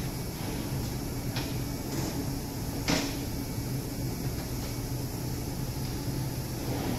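Small metal parts and tools knocking and clinking on a workbench as they are handled: a few short sharp knocks, the loudest about three seconds in, over a steady low hum.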